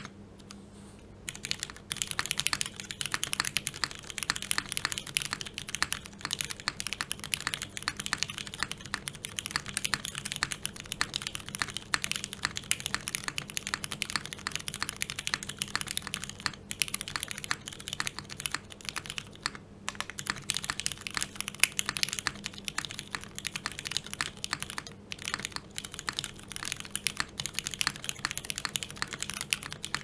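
Fast, continuous typing on a Kalam Unikorn mechanical keyboard: gasket-mounted aluminium plate with no dampening, lubed and filmed Cherry MX Brown switches and GMK keycaps. The typing starts about a second in as a dense run of key clacks, broken by a few short pauses.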